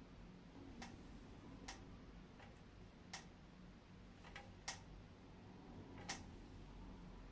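Near silence with about seven faint, sharp ticks at uneven intervals, the loudest near the middle and about six seconds in.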